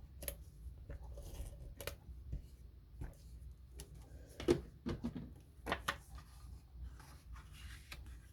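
Paper and cardstock being handled at a work surface: scattered light rustles and taps, with the firmest taps a little past the middle.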